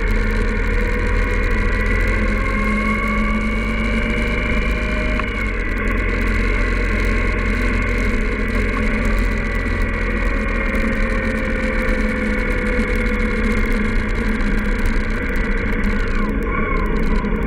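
Indian Scout V-twin motorcycle cruising steadily on the open road, engine running at a fairly constant speed under heavy wind noise on the bike-mounted microphone.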